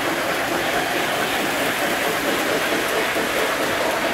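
Several Lionel model trains running at once on a layout, a steady rumble and clatter of wheels on the track with the whirr of the motors.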